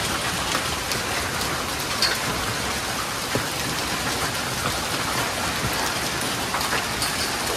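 Heavy summer downpour of a cloudburst pouring onto paving and a nearby canvas awning, a dense steady hiss with occasional sharp ticks of individual impacts.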